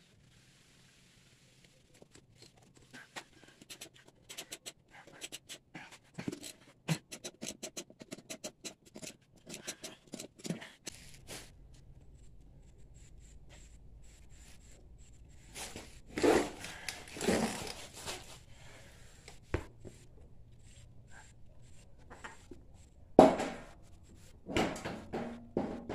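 Hand work on a go-kart's rear wheel hub: a long run of light, irregular clicks and scrapes, then a few louder knocks and scrapes near the end as a tyre and wheel are fitted up to the hub.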